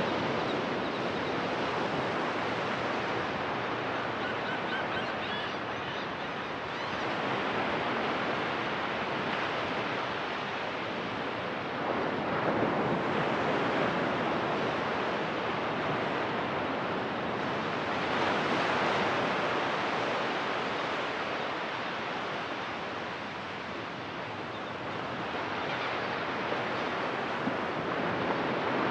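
Ocean surf breaking and washing up onto a sandy beach, swelling and easing every several seconds.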